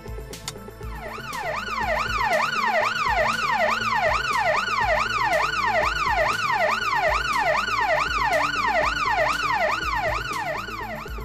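Intruder alarm siren set off by the panic button, wailing in rapid, even up-and-down sweeps about two and a half times a second. It starts about a second in and stops just before the end.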